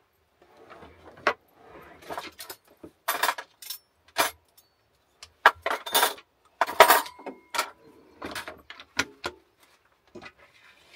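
Dishes and cutlery clattering and clinking as they are handled and put away at a small sink. The loudest clatters come about three seconds in and again around six to seven seconds, with one clink left briefly ringing near seven seconds.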